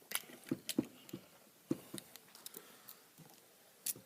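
Irregular light clicks and taps of small objects being handled, about a dozen spread unevenly over a few seconds, with the loudest near the end.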